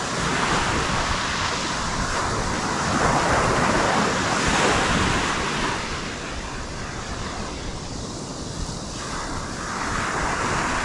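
Ocean surf breaking and washing up the beach in a steady rush that swells in the middle, eases, and builds again near the end, with wind buffeting the microphone.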